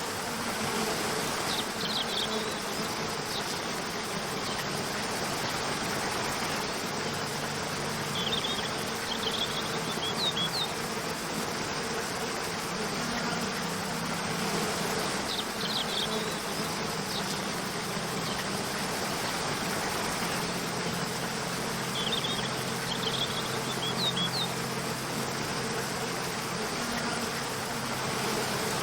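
Steady rush of falling water with soft, sustained background music notes underneath, and brief clusters of high chirps every several seconds.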